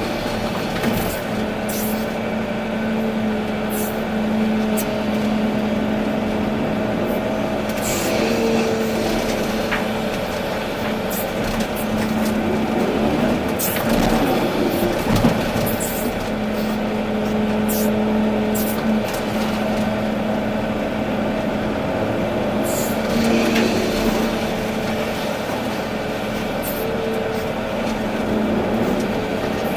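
Volvo EC380D excavator's diesel engine running under load, with a hydraulic whine that comes and goes in stretches as the machine works, and scattered light clicks and knocks.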